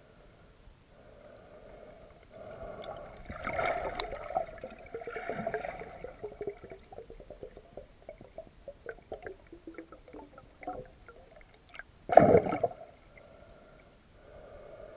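Muffled gurgling and bubbling of river water heard through an underwater camera housing, with a stretch of small crackles in the middle and a brief loud thump about twelve seconds in.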